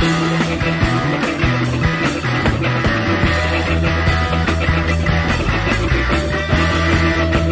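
Rock music with electric guitar and a steady drum beat, no singing; a sliding lead guitar line rises slowly through the passage.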